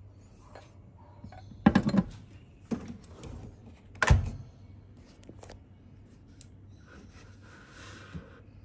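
A lidded ceramic rice-cooking mug set down inside a microwave, knocking and clinking against the turntable just under two seconds in. About four seconds in, the microwave door is pushed shut with a single thump.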